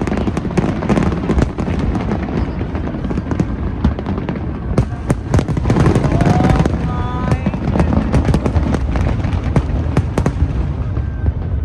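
A fireworks display going off in rapid succession: many sharp bangs and crackles overlapping, with crowd voices underneath and a rising shout about six seconds in.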